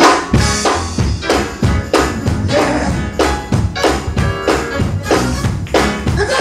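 Gospel band playing an up-tempo instrumental passage, with drums and tambourine keeping a steady fast beat over the instruments.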